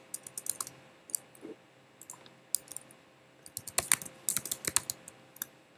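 Typing on a computer keyboard: scattered single keystrokes, then a quick run of keys about three and a half seconds in.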